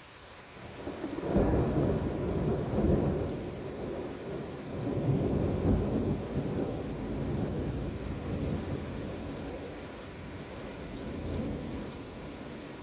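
Thunder rolling over steady rain. A low rumble builds about a second in, swells again about five to six seconds in, then slowly dies away.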